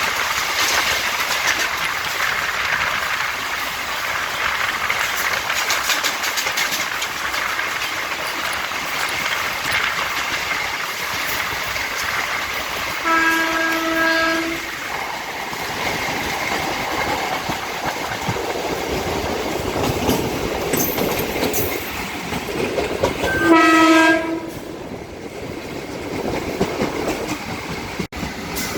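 Electric multiple-unit suburban train running, its wheels clattering over the rails. A two-tone-style train horn sounds twice, for about a second and a half around 13 seconds in and again, louder and shorter, near 24 seconds.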